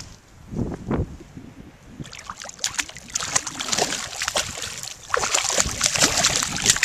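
A hooked redfish thrashing and splashing at the water's surface as it is brought alongside the boat on a fly rod, the splashing getting louder about five seconds in.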